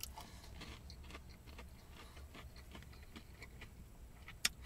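A person quietly chewing a chicken nugget: soft, irregular wet mouth clicks, with one sharper click near the end, over a low steady hum.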